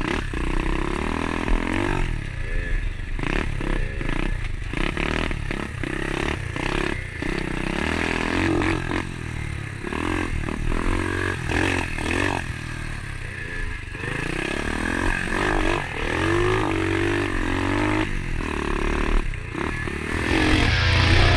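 Pit bike engine revving up and down over and over as it is ridden along a rough dirt trail, with the smaller engine of a Kawasaki KDX 50 dirt bike running ahead and knocks and rattles from the bike over bumps. Rock music comes in near the end.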